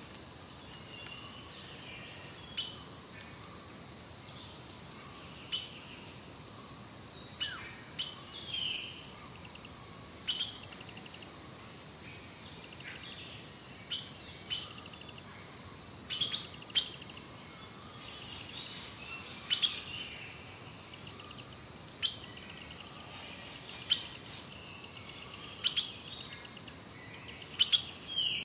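Forest birdsong: short, sharp, high calls every two or three seconds, with a longer falling trill about ten seconds in, over a faint steady high tone. It cuts off abruptly at the end.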